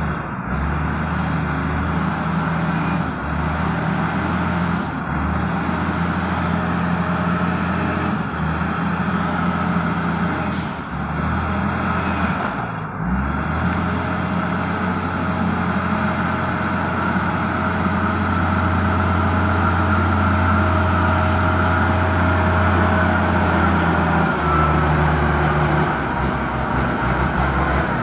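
Diesel engine of a wheel loader running steadily, its note shifting in level several times and growing louder in the second half. A brief sharp click comes about eleven seconds in.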